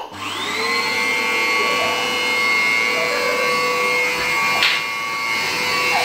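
Upright vacuum cleaner motor switching on and whining up to speed within the first second, then running steadily with a high whine. A brief knock sounds about two-thirds of the way through.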